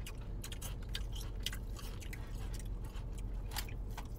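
People chewing crispy fried chicken wings: irregular crunching with wet mouth clicks.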